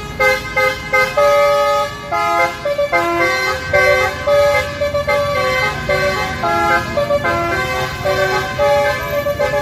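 Basuri telolet bus horn, a multi-tone musical horn, playing a quick melody: a string of short notes jumping between pitches several times a second, with a few held a little longer.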